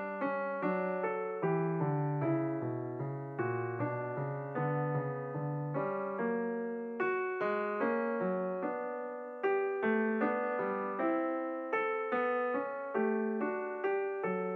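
Background piano music: single notes and chords struck about twice a second, each fading away before the next.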